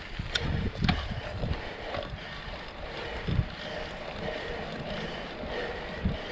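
Mountain bike riding a dirt singletrack: steady rumble of the tyres and wind across the microphone, with a couple of sharp rattles from the bike under a second in and low thumps over bumps near the middle and near the end.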